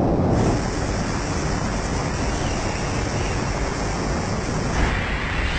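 Steady rush of wind over the microphone during high-speed wingsuit flight, shifting in tone about half a second in and again near the end.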